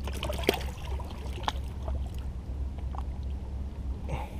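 A hand splashes in the lake as a freshwater drum is released, then water laps against the shoreline rocks in a few scattered small splashes, over a steady low wind rumble on the microphone.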